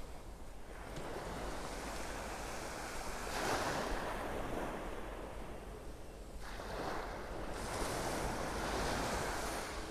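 Small, gentle waves breaking and washing up the beach, the surf swelling twice, about three seconds in and again about seven seconds in.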